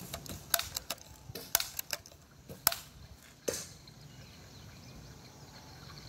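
A pump-action BB gun being handled and pumped: a string of short, sharp mechanical clicks and clacks in small groups over the first three and a half seconds, the loudest near the end of the string, then only quiet background.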